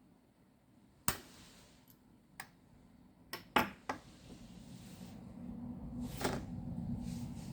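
About six sharp clicks and knocks of small hard objects, spaced irregularly with three close together in the middle, over a faint low hum that grows slowly louder in the second half.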